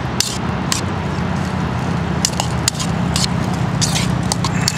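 Metal spoon clicking and scraping against a plastic bowl as a rice and bean salad is stirred, in irregular strokes over a steady low rumble.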